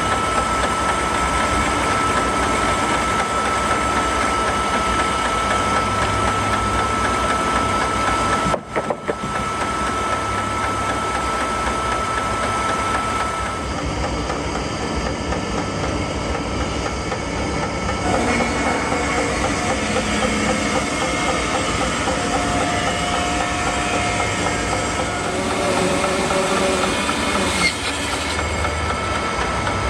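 Sawmill running steadily, its engine and blade cutting through a walnut log, with a brief break about nine seconds in.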